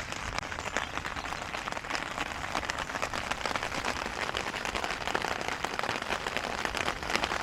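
Rain falling hard in a thunderstorm: a dense, steady spatter of countless drops hitting the surroundings.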